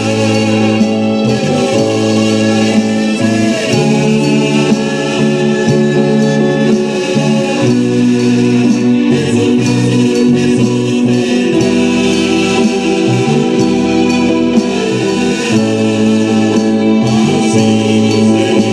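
Live gospel praise-band music: sung vocals over guitar, keyboard and an electronic drum kit, playing steadily.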